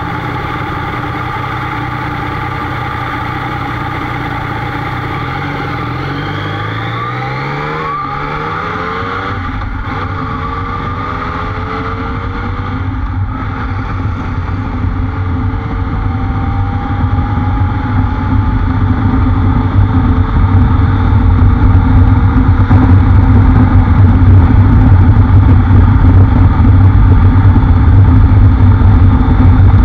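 Motorcycle engine running steadily at a stop. About six seconds in it accelerates away, its pitch rising through several gear changes. From about halfway, wind noise on the microphone builds into a loud, steady rumble that covers the engine as the bike cruises at speed.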